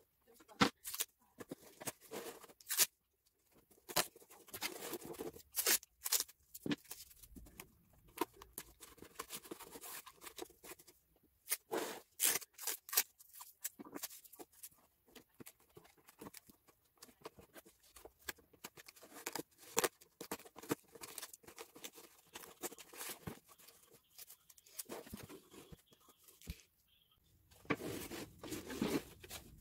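Cardboard box and stiff card sheets being handled: irregular rustling, scraping and crinkling with sharp taps and clicks. A denser burst of rustling comes near the end as the box is tipped onto its side.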